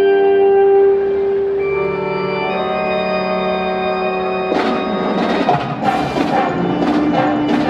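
High school wind band holding a long sustained chord; about four and a half seconds in, crowd applause and cheering break in over the band.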